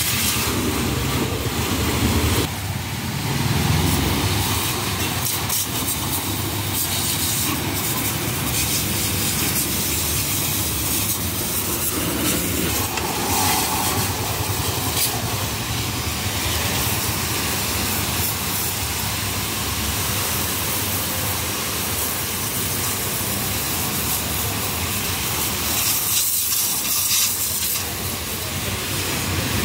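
High-pressure washer jet hissing steadily as it blasts caked mud off a tractor's wheels and engine bay. Near the end the spray briefly eases off, then picks up again.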